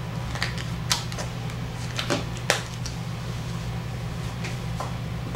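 A steady low hum with about half a dozen sharp clicks and taps scattered over it.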